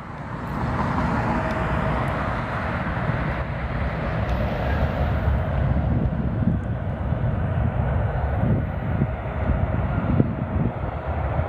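Boeing 777's twin jet engines at takeoff thrust: a loud, steady roar and rumble that builds over the first second, with a faint steady whine in it.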